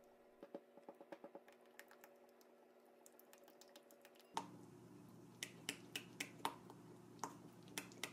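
Silicone spatula stirring thick dark chocolate ganache in a glass bowl: soft wet squishes and irregular light clicks of the spatula against the glass, more frequent and louder in the second half.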